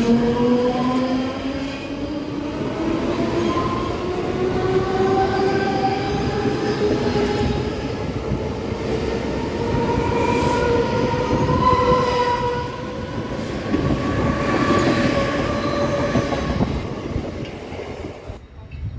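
Central Railway suburban EMU local train pulling out. The whine of its electric traction motors rises steadily in pitch as it gathers speed, over the rumble of its wheels on the rails. The sound drops away suddenly near the end.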